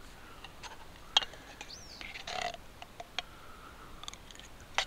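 A few sharp clicks and light handling noises, the loudest about a second in, with a short high chirp that rises and falls about two seconds in.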